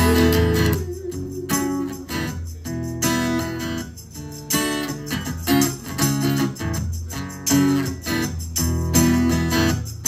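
Acoustic guitar strummed in steady rhythmic chords, an instrumental passage of a song.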